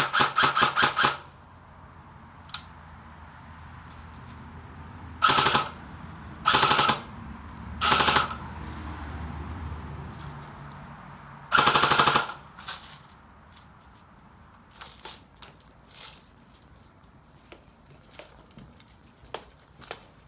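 Airsoft AK-74U replica firing on full auto in short bursts. One rapid burst ends about a second in, three brief bursts follow in the middle, and a longer burst comes near the end, with light clicks in between.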